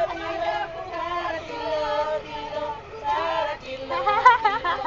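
Women's voices singing together, holding long notes, with a louder, wavering stretch about four seconds in.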